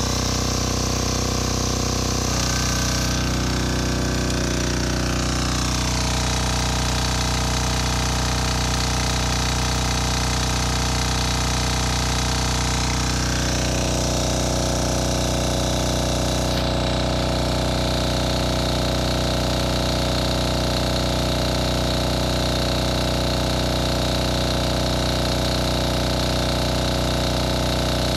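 Yanmar L48AE single-cylinder air-cooled diesel engine driving a generator, running steadily under the load of two electric heaters. Its note shifts a few times in the first dozen seconds as the load comes on, then holds even.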